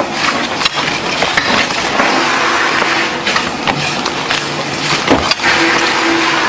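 Dense clattering room noise with frequent sharp clicks, from playing cards and card boxes being handled and packed by hand at speed in a busy workroom.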